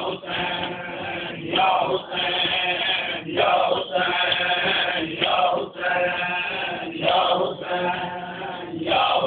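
A crowd of men chanting a noha, a Shia mourning lament, in unison, in loud phrases broken by short pauses every second or two.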